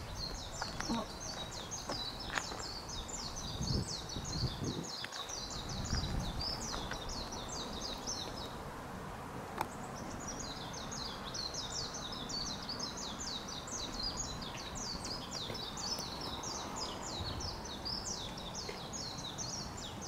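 A small songbird singing a long, fast twittering song of high chirping notes, breaking off about eight seconds in and starting again about two seconds later. A few low thuds sound in the first six seconds.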